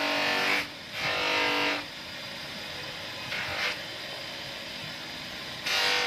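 Steel knife blade pressed against a spinning buffing wheel on a motor-driven polishing spindle, making a loud hissing whine with a steady tone while the blade is on the wheel. It is lifted off about two seconds in, leaving the quieter run of the spinning wheel with one brief touch midway, and pressed on again near the end.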